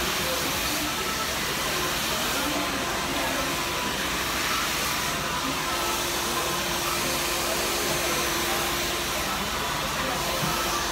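Handheld hair dryer running steadily, blowing air through the hair during a blow-out.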